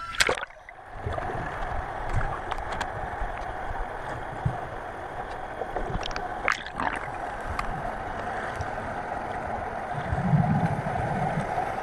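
Water gurgling and sloshing around a camera as it dips under the surface, with a sharp splash-like hit about a second in. Then a steady underwater wash with scattered clicks, and a louder low rumble near the end.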